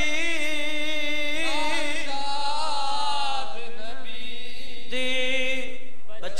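Unaccompanied noha, a Shia lament, sung by a male voice in long held notes that waver in pitch, in a few slow phrases.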